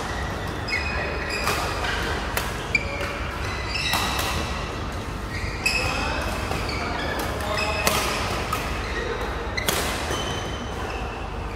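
Badminton rackets striking a shuttlecock during a doubles rally: sharp hits a second or two apart, with short high squeaks of shoes on the court floor between them.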